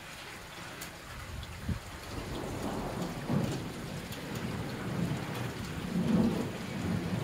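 Steady rainfall with rolling thunder: a low rumble swells about two seconds in and surges twice more before the end.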